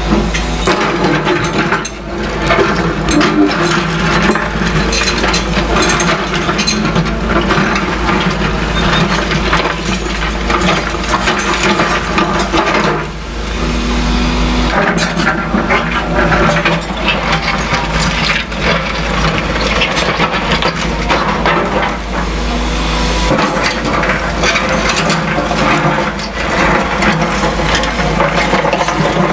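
CAT excavators on demolition work: diesel engines running under a constant crunching, cracking and clattering of broken rubble and debris being worked over.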